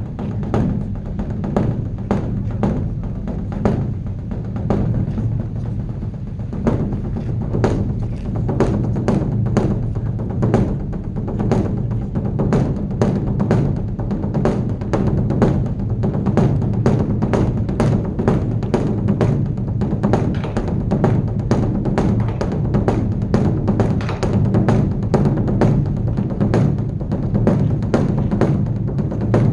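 Large Buddhist temple dharma drum (beopgo) beaten in a fast, continuous run of deep strikes, about two to three a second, sounded as the evening drum call.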